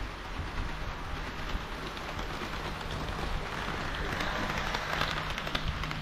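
HO-scale model KiHa 40 and KiHa 58 diesel railcars rolling on sectional track, a steady whirring rumble of wheels and motors. It grows louder from about three and a half seconds in as the trains close on the microphone, with small clicks as the wheels cross rail joints.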